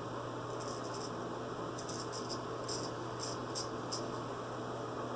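Naked Armor straight razor scraping through lathered stubble in a series of short strokes, about half a second to four seconds in, over a steady low hum.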